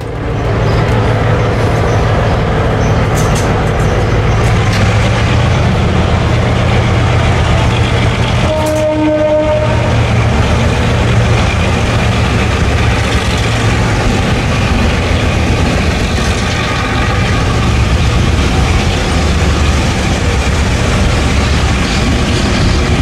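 A train running on the rails, with a loud steady rumble, and a short pitched tone lasting about a second, roughly nine seconds in.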